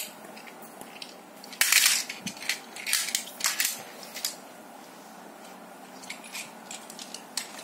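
Scattered sharp clicks and crackles of hard objects being handled, loudest in a burst about two seconds in, then fewer and fainter after about four seconds.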